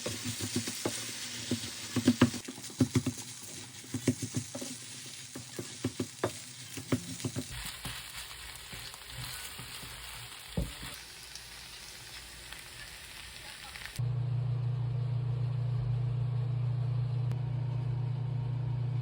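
Food sizzling in a frying pan while a spatula stirs and knocks against the pan in quick irregular clicks, the stirring thinning out after about seven seconds. About three-quarters of the way in it cuts off abruptly to a steady low hum.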